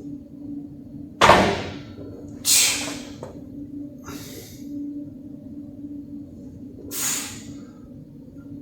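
A man breathing out hard in four short, sharp breaths, the first the loudest, while lifting or recovering between bench press sets, over a steady low hum.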